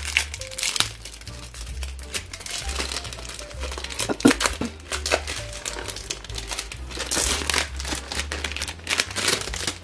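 Clear cellophane wrap crinkling and crackling as it is peeled and pulled off a perfume box, in irregular handfuls of crackles, over background music.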